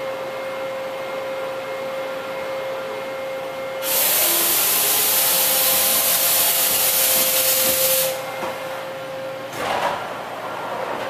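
Toshiba BMC-80E horizontal machining center running with a steady, high-pitched hum. About four seconds in, a loud hiss starts, holds for about four seconds and cuts off, followed by a short burst of noise about two seconds later.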